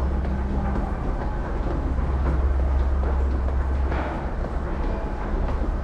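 Namboku Line subway train running, a steady loud low rumble with rattling noise over it.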